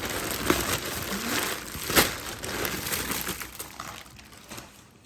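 Plastic packaging crinkling and rustling as it is handled, with one sharper snap about two seconds in. The crinkling thins out and fades over the last second or so.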